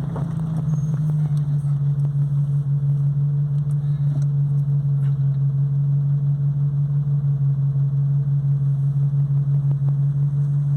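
Chevrolet Corsa engine running steadily at constant revs, a loud, even drone that holds one pitch, as when cruising in top gear.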